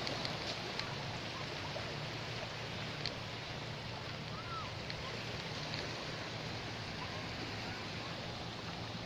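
Small waves washing onto a sandy shore, a steady hiss of surf.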